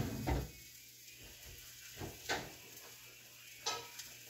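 Kitchen utensils being handled: a few scattered sharp clicks and clinks, the loudest a little after two seconds in. The background between them is quiet.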